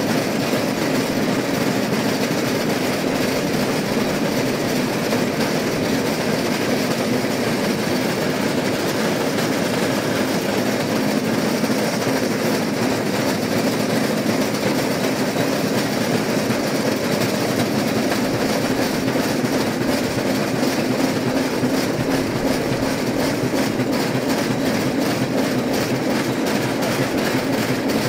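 Steady rolling noise of a rail vehicle running along the track, unchanging throughout.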